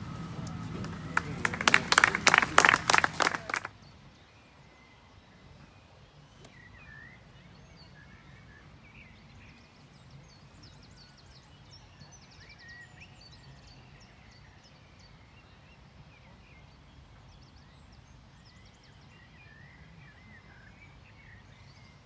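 Loud rapid crackling clatter for the first few seconds, cutting off abruptly, then quiet open-air ambience with small birds chirping and singing on and off.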